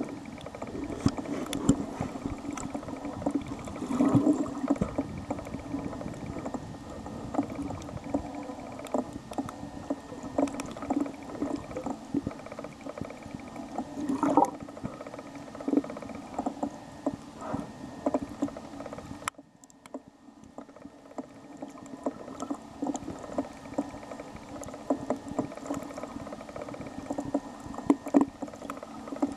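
Underwater sound on a coral reef, picked up by a submerged camera: a steady low rumble of moving water with many scattered sharp clicks and crackles. A little past the middle the rumble cuts out suddenly and goes much quieter for a few seconds, then slowly builds back.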